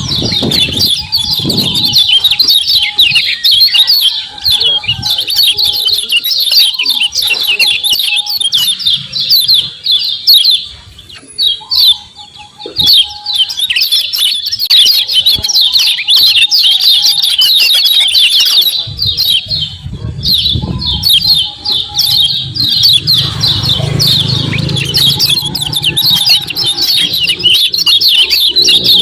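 Kecial kuning white-eye (pleci) calling and singing in a fast, dense stream of high chirps and trills (the 'ciak ciak' call). The stream falters briefly about eleven seconds in.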